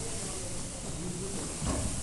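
Faint, indistinct voices in a large, echoing gym hall, with a brief soft brush of judo gi cloth and feet on the mat about three-quarters of the way through as two judoka take grips on each other's jackets.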